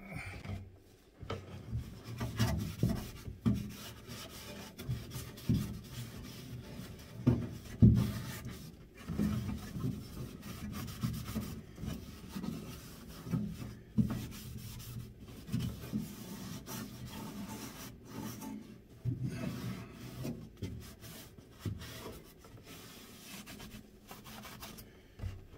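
A cloth rubbing back and forth over the Kombi's bare steel inner side panel, wiping it clean with acetone before sound deadening is stuck on. Irregular scrubbing strokes, with dull knocks and thumps from the panel and van body; the loudest comes about eight seconds in.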